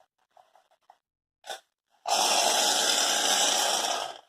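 Aerosol can of shaving foam spraying: a short squirt about one and a half seconds in, then a steady hissing spray of about two seconds that stops just before the end.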